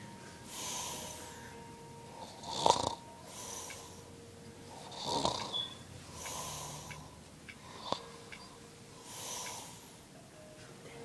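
A sleeping man snoring, with a rasping breath every two to three seconds. Two of the breaths end in a sharp snort, about three and five seconds in.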